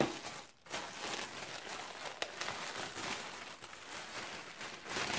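Clear plastic garment bag crinkling and rustling as it is handled and opened, with a brief pause about half a second in.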